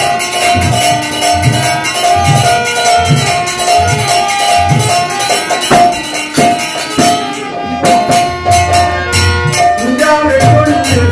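Devotional kirtan music: harmonium playing a melody over regular khol drum strokes and constant jingling of kartal hand cymbals. A man's singing voice comes in near the end.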